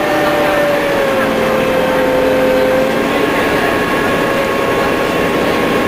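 MCW Metrobus engine and transmission heard from inside the passenger saloon while the bus is driving: a steady mechanical whine that drops slightly in pitch about a second in, then holds.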